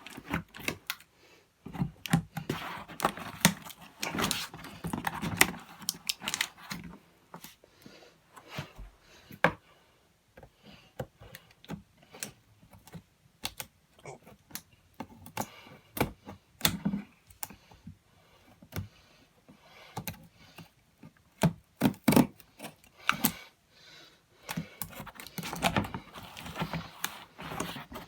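Irregular clicks, taps and rustles of a cardboard toy box and its packaging being handled as it is opened.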